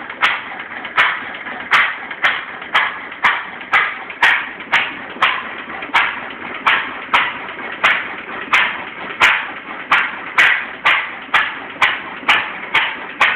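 1928 Massey-Harris stationary engine running slowly, with a sharp bang about twice a second at slightly uneven spacing. The owner says it is running a little strange.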